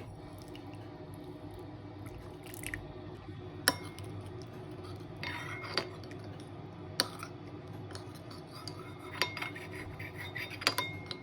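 A metal utensil stirring in a mixing bowl, with a handful of sharp clinks against the bowl and some scraping, over a steady low hum.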